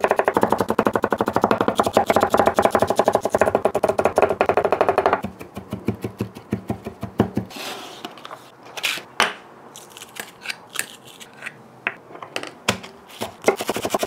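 Chef's knife chopping rapidly on a wooden cutting board: a fast, even run of knocks through ginger for about five seconds, then slower, irregular cuts as garlic is minced, quickening again near the end on spring onions.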